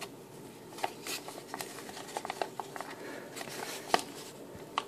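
Stapled paper envelope handled and picked at by fingers: light paper rustling with a scatter of small clicks and taps, the sharpest about four seconds in.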